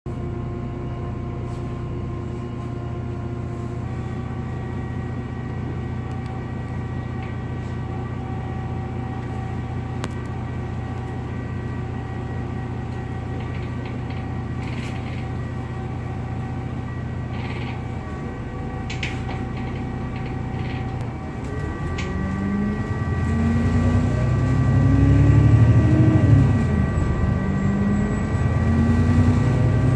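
Alexander Dennis Enviro 400MMC double-decker bus with a strange whirring noise: several steady whining tones over the low hum of the idling diesel. About 21 seconds in the engine pulls away, its pitch rising in steps through the gear changes and getting louder.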